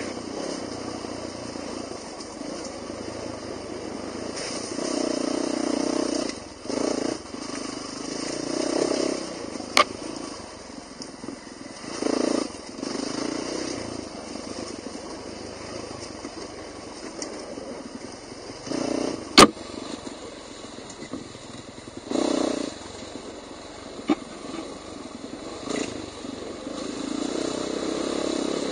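Off-road dirt bike engine running while riding a trail, the engine note swelling and dropping repeatedly with bursts of throttle. Two sharp clicks cut through, about ten seconds in and again near twenty seconds.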